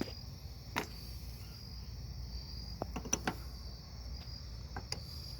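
Crickets chirping steadily, with a few sharp clicks and taps about a second in, around three seconds and near the end, from tool and metal handling at the battery terminals.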